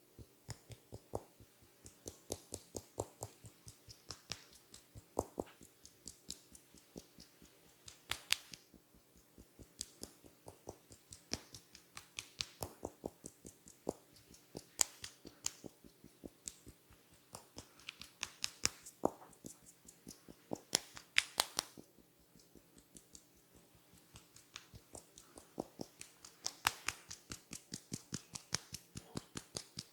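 Rapid, regular clicks, about four a second, some sharper and louder than others, with a brief quieter stretch about two-thirds of the way through.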